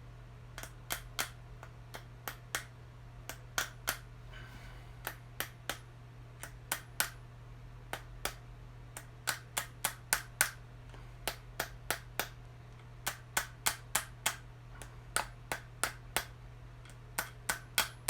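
Dozens of light, sharp metal taps at an uneven pace, sometimes in quick pairs, as a small sealed rollerblade bearing is tapped into place on a tile saw's motor shaft.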